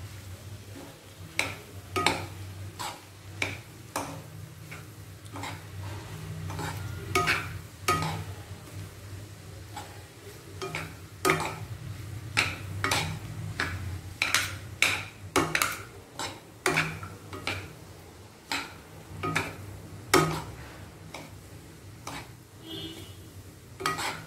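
Two spatulas stirring and tossing noodles and rice in a non-stick kadai: irregular scrapes and taps of the utensils against the pan, over a steady low hum.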